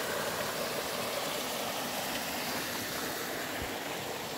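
Small waterfall on a mountain creek: water cascading over rocks into a shallow pool, a steady splashing rush.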